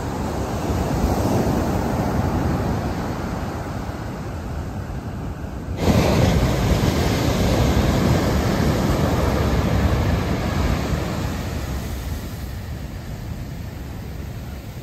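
Ocean surf from a large swell, waves breaking and foam washing up the sand in a steady rush. About six seconds in the sound jumps suddenly louder, then slowly eases off.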